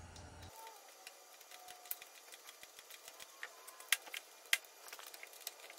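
Faint, irregular metallic clicks and taps of a wrench on the mounting nuts as a magneto is bolted onto a 1944 Allis-Chalmers B tractor engine, with two sharper clicks about four seconds in.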